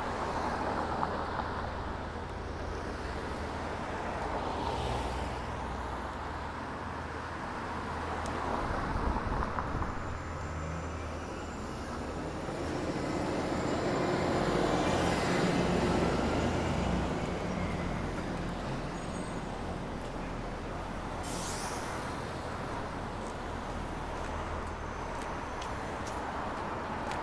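Street traffic: a steady rumble of passing cars and other vehicles that swells as each one goes by, loudest about halfway through. There is a brief sharp hiss about three-quarters of the way through.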